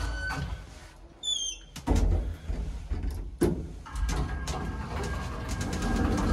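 Small old lift: a short high squeal about a second in, then clicks and clunks of the door and car. From about four seconds a low rumble and a steady high hum come in as the car runs.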